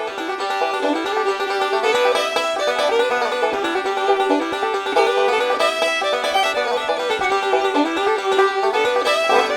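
Music: a quick, plucked string tune with many fast notes and a steady pulse.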